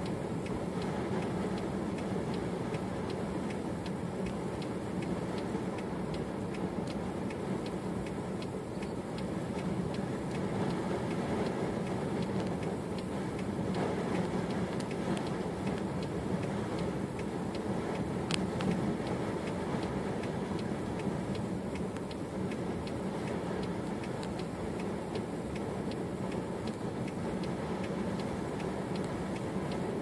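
Steady wind noise of a blizzard, with faint ticking through it.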